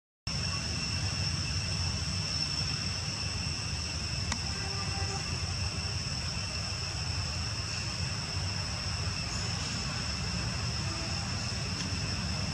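Outdoor ambience: a steady high-pitched insect drone over a constant low rumble, with a brief dropout right at the start.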